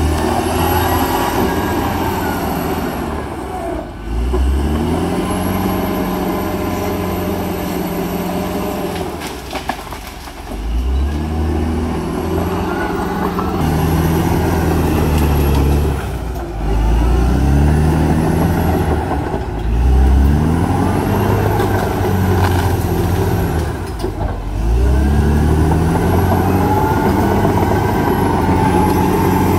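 Caterpillar D7R crawler dozer's diesel engine working under load, revving up and dropping back again about every four seconds as it pushes. A faint high whistle rises and falls with each rev.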